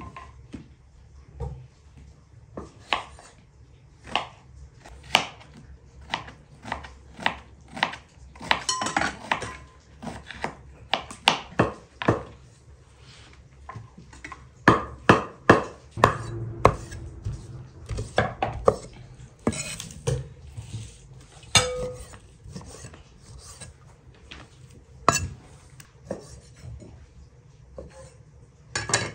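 A knife cutting raw lamb on a wooden chopping board, the blade knocking the board at an irregular pace, with a cluster of louder chops about halfway through.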